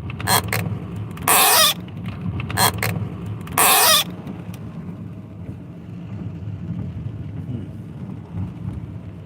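Steady hum of a moving car heard inside the cabin, with four loud scraping rubs in the first four seconds as the phone is handled against its microphone.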